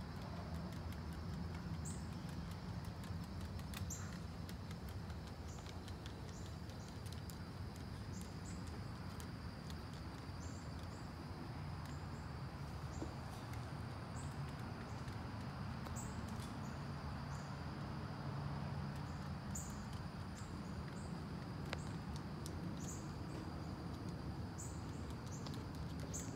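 Outdoor summer ambience: a steady high insect drone with short high chirps repeating every second or so, over a low rumble. Faint light clicks, fitting a small dog's claws on a wooden deck.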